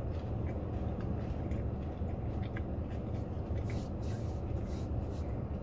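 Steady low rumble inside a car's cabin, with faint scattered clicks of a person chewing food, most of them in the second half.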